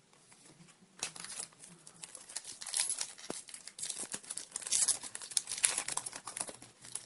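Crinkling and tearing of a 2010 Topps Chrome baseball card pack's wrapper as it is torn open by hand, an irregular crackle of many small clicks starting about a second in.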